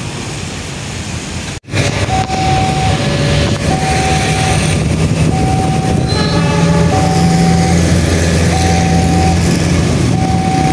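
Steady traffic noise, then after a cut about a second and a half in, a railway level-crossing warning alarm repeating a pulsing electronic tone, on for under a second at a time. Under it is a loud steady low engine rumble.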